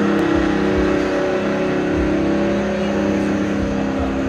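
Car engines running at low speed as classic cars cruise slowly along the street, a steady low engine note with several tones that eases off slightly toward the end.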